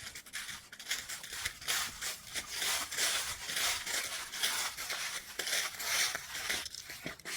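Hiking footsteps crunching and rustling steadily on the trail surface, in a quick run of short strokes.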